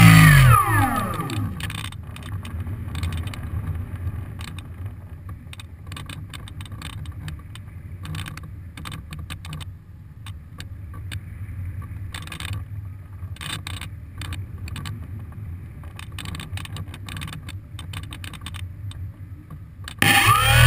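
GWS SlowStick RC plane's electric motor and propeller whine dropping steeply in pitch and dying away as the throttle is cut, then a glide with low wind rumble and irregular rattling clicks from the airframe. Near the end the motor spools back up with a sharply rising whine.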